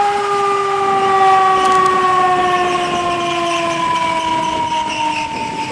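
Siren of a fire department water rescue truck: one steady tone with several overtones, sliding slowly down in pitch.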